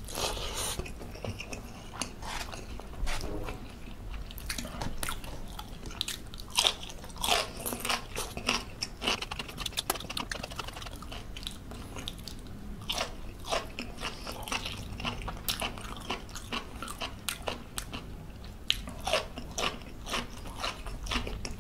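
Close-miked eating sounds: irregular wet chewing, lip smacks and crunches as rice and fish curry are eaten by hand. Near the end comes the crunch of biting into a raw okra pod.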